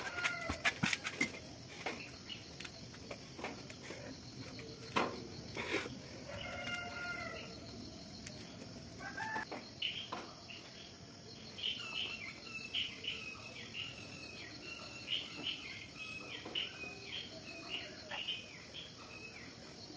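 A steady high trill of night insects, with a cluster of knocks in the first second or two and two more a few seconds later. Short bird-like calls follow, and over the second half a run of quick high chirps.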